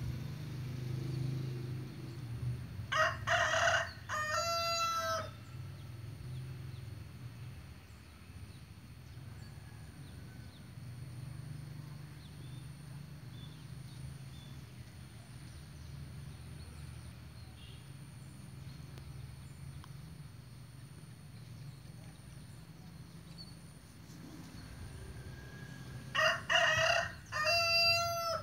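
Free-range village rooster (ayam kampung) crowing twice, about three seconds in and again near the end, each crow a run of held, pitched notes lasting a couple of seconds. A steady low hum underlies it.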